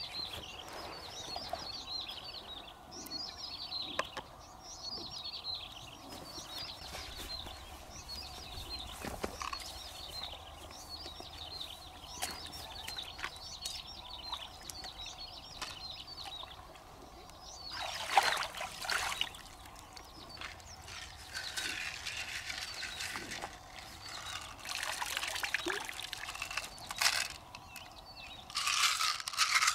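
Small birds chirping in repeated short falling phrases. From about halfway on, water splashes and trickles in several bursts as hands rinse in shallow pond water. Near the end a louder rattling begins.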